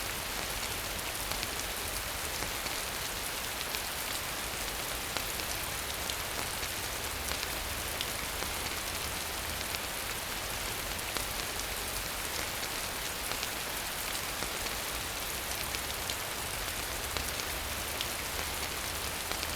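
Steady rain falling, an even hiss dotted with the ticks of individual drops, over a low rumble.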